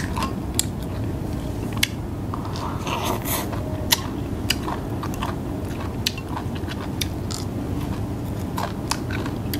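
Close-up chewing and crunching of food, with short light clicks of chopsticks against a porcelain rice bowl scattered throughout.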